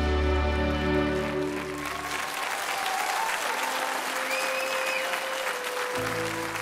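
Audience applauding over the orchestra's final held chord, which dies away about two seconds in. Soft sustained notes of the next number's introduction come in under the clapping, and a low bass note enters near the end.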